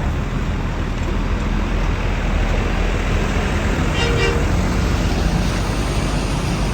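Steady rumble of bus engines and traffic, heavy at the low end, with one short horn toot about four seconds in.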